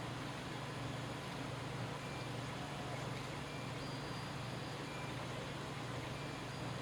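Steady background hiss with a low hum underneath: room tone, with no distinct event.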